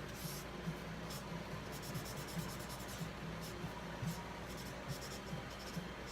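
A pen drawing on paper: many short scratchy strokes, some in quick runs, over a steady low hum.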